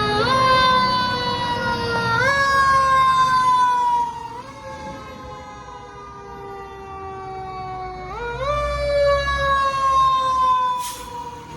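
Fire truck siren sounding in repeated cycles, each a quick rise in pitch followed by a slow fall, four times. It is loud for the first few seconds, fades, then swells again near the end as the apparatus comes close.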